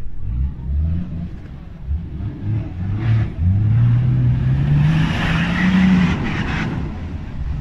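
A 4x4 SUV's engine revving under load as it climbs out of a mud pit, its note rising steadily through the middle of the clip. A loud rush of noise comes in over the revving for a couple of seconds as the spinning tyres throw mud.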